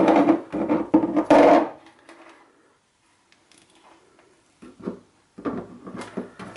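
Multimeter test leads and crocodile clips clattering and rubbing against a tabletop as they are clipped onto a shower solenoid valve's terminals. The handling comes in two bouts of knocks and scrapes with a near-silent pause of a couple of seconds between them.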